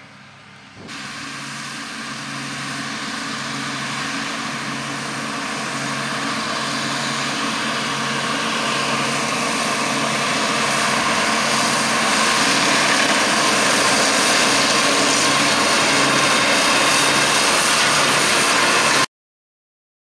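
John Deere 7290R tractor running with a KRM topper cutting grass. It grows steadily louder as it approaches for the first dozen seconds, then holds steady, and cuts off abruptly near the end.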